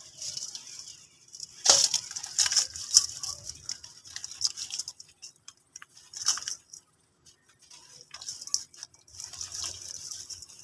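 Crisp crackling and crunching as brittle ash is crumbled, coming in several bursts separated by short pauses. The loudest run is about two to three seconds in.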